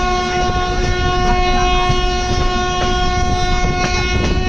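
A train horn sounds one long blast at a steady pitch over the rumble of a train moving through the station. The wheels clack over the rail joints.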